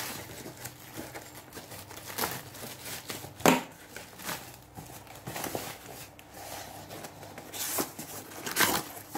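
Plastic wrap crinkling and rustling as it is pulled off a long cardboard box, in irregular handling noises with a sharp crackle about three and a half seconds in. Near the end the box's cardboard flaps are pulled open.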